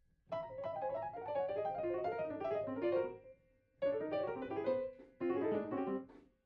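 Solo piano music: quick phrases of notes, breaking off briefly twice.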